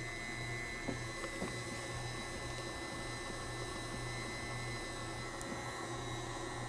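Electric stand mixer running steadily, beating cake batter in its steel bowl: a constant high whine over a low motor hum.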